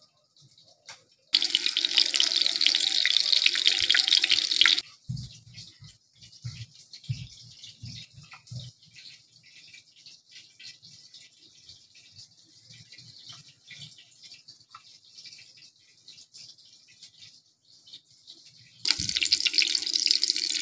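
Egg-dipped kebabs sizzling loudly in hot ghee in a frying pan, in a burst of about three and a half seconds starting just over a second in. Then come soft, wet handling sounds of the patties being dipped in beaten egg. The loud sizzle comes back suddenly near the end as another kebab goes into the pan.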